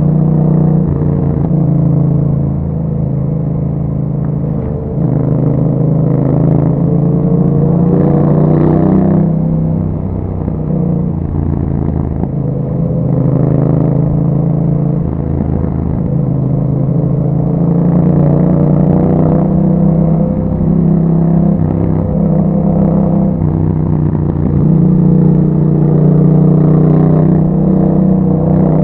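Yamaha MT-07's parallel-twin engine running through an Akrapovic exhaust while riding. The engine note rises and falls with the throttle, and drops suddenly a few times.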